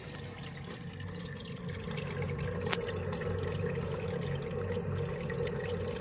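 Water from a garden hose running steadily out of a drain line into a sump basin, heard from down in the pit, a little louder from about a second in. That the water can be heard running is a telltale sign that the line has good fall and runs downhill without a belly.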